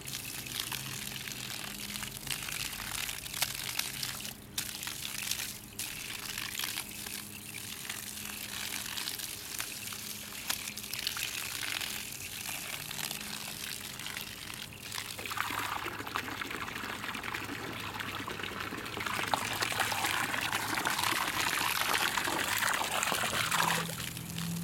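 Water from a garden hose pouring and splashing onto grass and a serval kitten playing in the stream, a steady splashing that grows louder about two-thirds of the way through.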